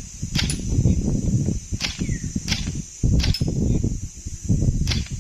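Airsoft gun firing single shots, about five sharp cracks spread unevenly over five seconds.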